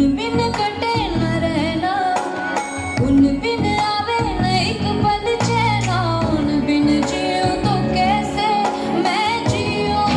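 A song playing: a sung melody that bends and turns in ornaments, over instruments and a steady bass.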